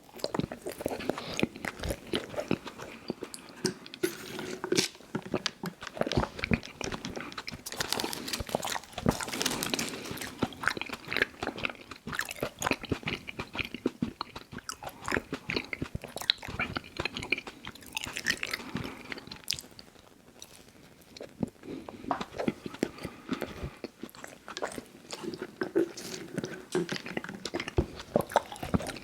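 Close-miked chewing and biting of frosted Little Debbie Birthday Cakes snack cakes: wet mouth sounds with many small crunchy clicks. There is a short quieter lull about two-thirds of the way through.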